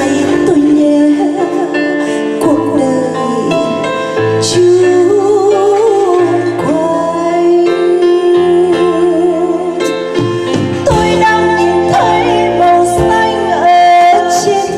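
A woman singing into a microphone with a live band backing her, including electric guitar and drums; she holds long notes with vibrato.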